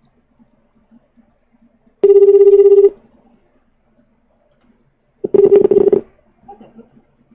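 Ringback tone of an outgoing phone call ringing on the line: two rings about three seconds apart, each a buzzy steady tone lasting just under a second.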